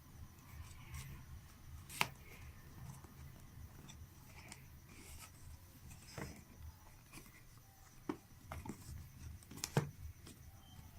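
Hands handling a phone's retail box and packaging during unboxing: scattered light clicks, taps and rustles, with one sharper click about two seconds in.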